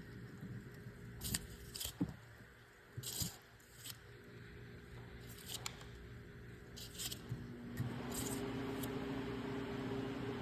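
Rebuilt Audi 0B5 DSG front differential, fresh bearing and oil, being turned by hand: only scattered light clicks and faint rubbing, with no bearing grind or whine, as a sound bearing should be. A steady low hum sets in near the end.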